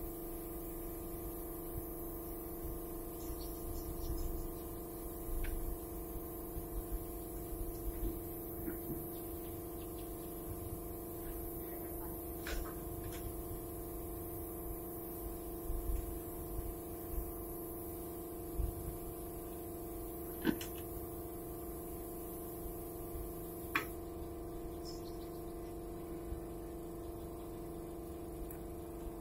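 Paint spray gun hissing as it sprays a board, over a steady hum; the hiss drops away near the end. A few sharp clicks.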